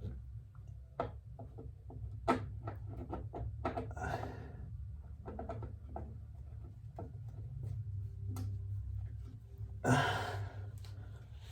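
Light, scattered clicks and knocks of hands at work as a new oil filter is threaded onto the engine by hand, with two short puffs of rustling noise, about four seconds in and near the end.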